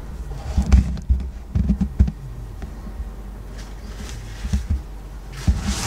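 Handling noise: scattered low thumps and a brief rustling rush near the end as the recording camera is moved and repositioned, over a steady low room hum.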